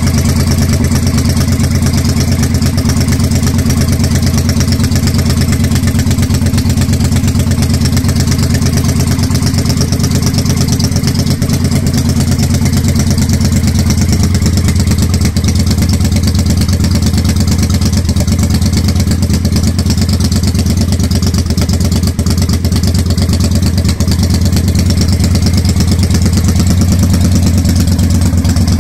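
2005 Triumph America custom bobber's air-cooled parallel-twin engine idling steadily.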